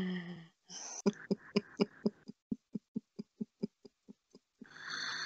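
A woman's voice in a run of short, evenly spaced vocal pulses, about four a second, fading over about three seconds, after a drawn-out falling hum at the start and before a breathy exhale near the end.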